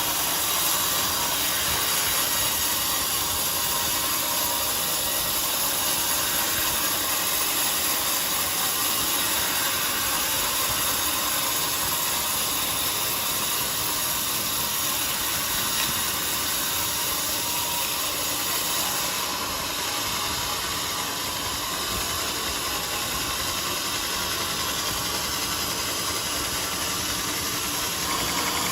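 Band sawmill running steadily as it saws a jackfruit log, a continuous machine hiss and drone that eases slightly for a few seconds about two-thirds of the way in.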